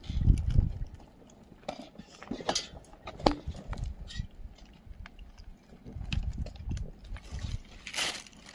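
Cats and a kitten eating from a plastic feeding trough: scattered clicks and taps of food, teeth and paws against the plastic, with low rumbling bumps near the start and again past the middle.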